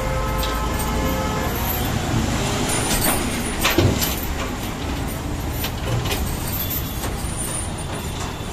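Road vehicle engines and traffic noise, a steady rumble, with one brief sharp knock a little under four seconds in.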